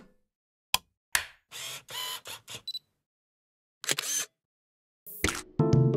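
Camera sound effects: a few sharp shutter-like clicks and short mechanical bursts. Music begins about five seconds in.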